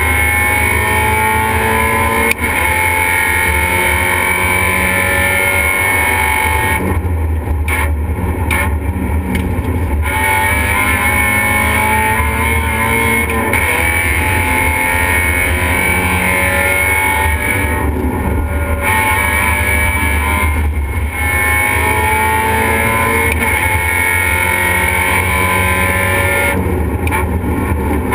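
Race car engine heard loudly from inside the stripped cabin at speed, the revs climbing again and again and dropping back between climbs, over a steady drone of road and wind noise. A sharp click sounds about two seconds in.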